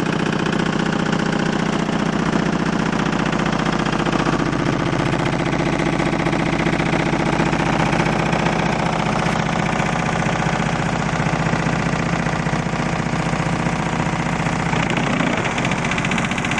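Four Fi BTL 18-inch car subwoofers in a ported box tuned to 26 Hz playing very low bass at extreme volume. It comes across as a steady, loud, distorted buzzing rattle, which changes character about fifteen seconds in.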